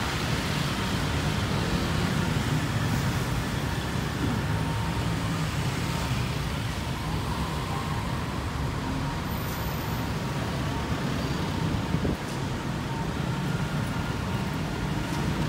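Steady road traffic noise from a busy city street: cars and vans running past.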